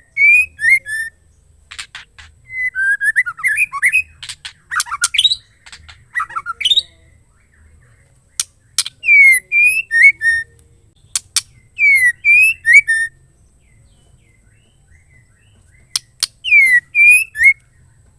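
Female white-rumped shama calling: a short phrase of sharp clicks and quick falling whistled notes, repeated four times with pauses between. A busier run of varied notes sits between about two and seven seconds in.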